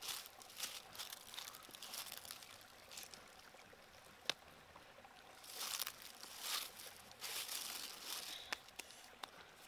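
Dry leaves crackling and rustling as someone shifts among them, with a few sharp clicks of clay pots set down on the stones, the loudest about four seconds in. A stream trickles faintly underneath.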